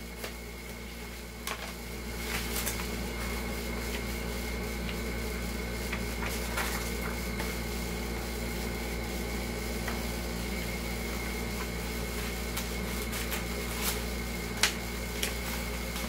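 A steady machine hum with a faint high whine, a little louder from about two seconds in, with a few light clicks and taps.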